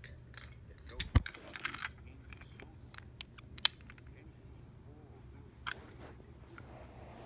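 Handling noise: a scatter of sharp clicks and knocks over a low steady hum, the loudest about a second in and another past halfway.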